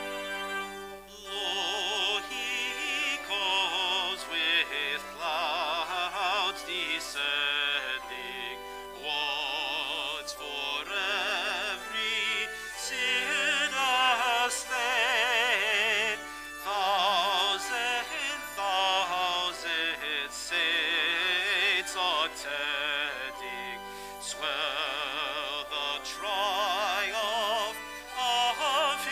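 A hymn sung by a voice with strong vibrato over organ accompaniment, in phrases of about four seconds with short breaks between.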